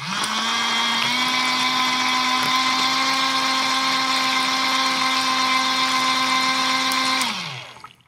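Toy washing machine's small battery-powered electric motor spinning its tub of water and colored balls: a steady whine that rises slightly in pitch about a second in, holds for about seven seconds, then winds down and stops.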